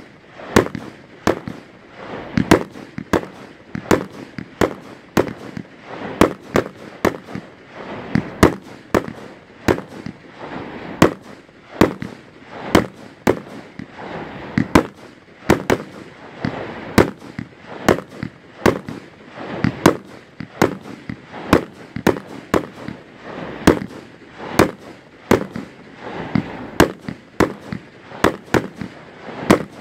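Aerial fireworks going off in rapid succession: a steady string of sharp bangs, about two a second, with a hiss and crackle between them.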